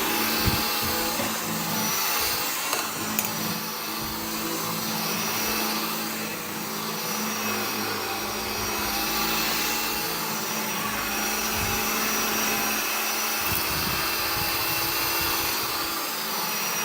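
Bissell AirRam 22-volt cordless upright vacuum running steadily as it is pushed and swivelled over the floor: an even suction hiss with a steady motor whine. A few light knocks come in the first few seconds.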